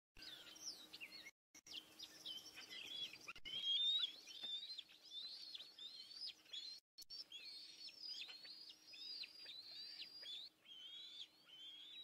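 Bald eagles calling at the nest: a continuous, fairly faint chatter of high, thin chirping whistles, many short notes sliding downward. The sound cuts out briefly twice.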